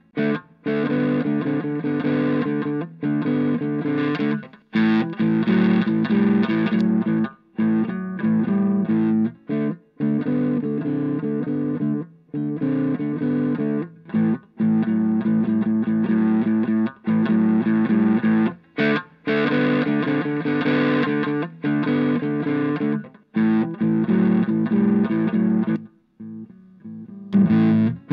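Electric guitar comping, choppy chords with short breaks between them, through a breadboarded Tube Screamer-style overdrive at medium gain with its TS-like tone control.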